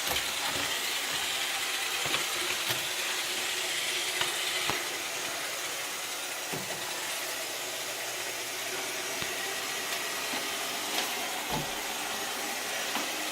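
iRobot Roomba 680 robot vacuum running on a bare floor: a steady whirring hiss from its motor and brushes, with a few light knocks scattered through.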